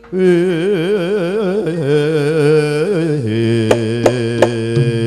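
A man chants a Javanese sung verse into a microphone, his voice wavering in a wide vibrato. About three seconds in the voice gives way to steady low gamelan tones, marked by a few sharp strikes.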